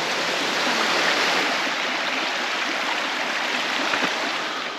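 Kujira no Taki waterfall: a steady rush of falling water, easing slightly right at the end.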